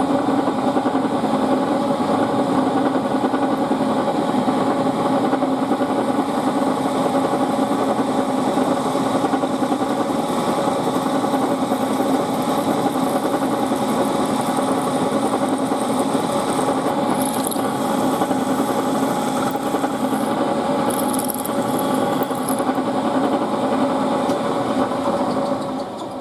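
Milling machine spindle running steadily while drilling a hole through a brass part, with a light high scratching of cutting now and then, winding down near the end.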